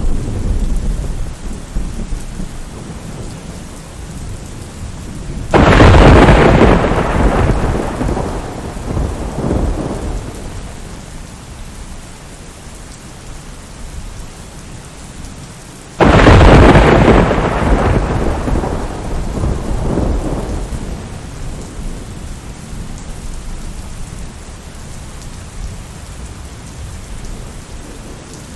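Steady rain with thunder: a low rumble at the start, then two loud claps about six and sixteen seconds in, each rolling away over several seconds.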